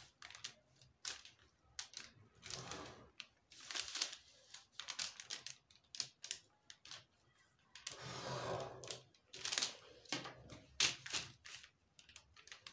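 Faint drafting sounds: a clear plastic ruler being set down and shifted on brown pattern paper and a ballpoint pen drawing along its edge. Irregular clicks and taps, with a few longer rustling swishes of paper, the longest about eight seconds in.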